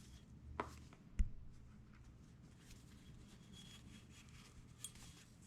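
Faint hand-handling of a suppressor's box and packaging, with a short rustle-click just over half a second in and one sharp knock about a second in.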